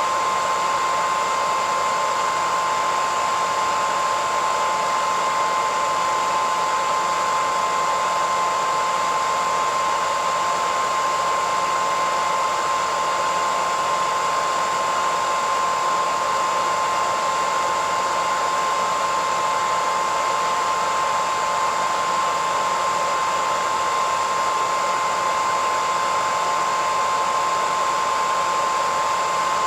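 Hairdryer running steadily: an even rush of air with a constant whine.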